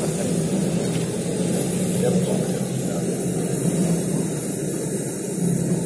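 Two hornets fighting, their wings giving a steady low buzz throughout.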